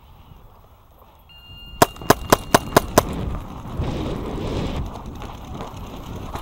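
A paintball marker firing six quick shots, about four a second, followed by running footsteps on dry grass.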